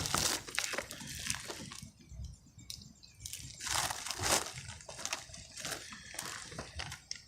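A shipping package being opened by hand: irregular rustling and crinkling of the packaging, in uneven bursts with a few sharper crackles.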